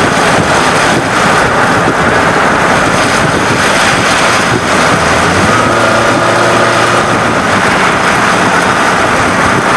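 Loud, steady wind and road noise of a vehicle driving at speed, with wind buffeting the microphone. A faint steady hum joins in the middle and fades again.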